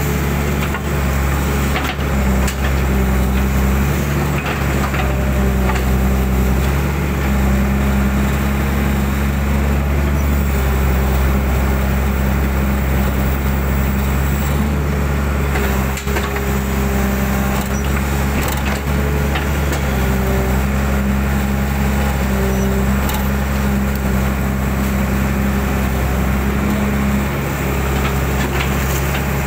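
Hydraulic excavator's diesel engine running steadily while the boom and bucket dig mud out of a ditch, heard from the operator's cab. A higher tone comes and goes over the engine note, with a few brief knocks.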